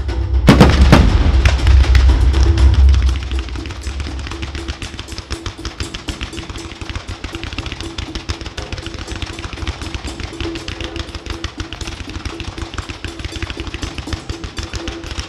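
Fireworks going off: heavy bangs with a low rumble in the first few seconds, then a dense, fast crackling for the rest, with music playing underneath.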